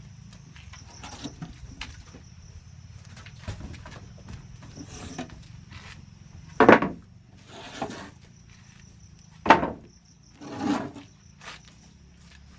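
A steady high insect drone with several scraping crunches, two of them loud and sudden, about seven and nine and a half seconds in.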